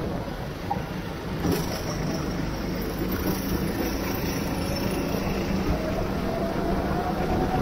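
Go-kart engine running under way on a wet track, heard from on the kart with wind on the microphone and a hiss of water spray; a faint engine tone rises in pitch over the last couple of seconds as the kart picks up speed.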